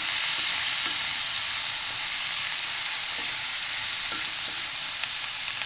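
Chopped vegetables stir-frying in a stainless steel pan: a steady sizzle, with a wooden spatula stirring and scraping through them.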